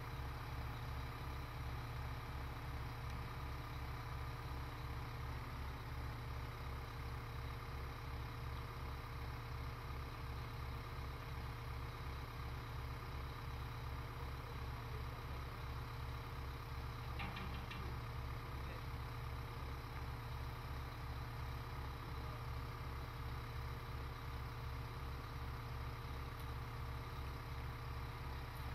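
Mobile crane's diesel engine idling steadily, a low, regular throb. A brief clatter of a few sharp clicks about two-thirds of the way through.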